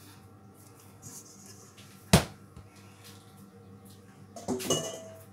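Kitchen handling on a wooden chopping board. There is one sharp, loud thud about two seconds in, and a short clatter with a brief metallic ring near the end, as the pastry dough ball is set down and the stainless-steel mixing bowl is moved away.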